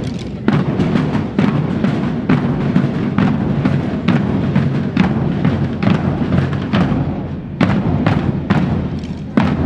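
Military marching band playing a march, with a drum beat at about two strokes a second over steady held notes.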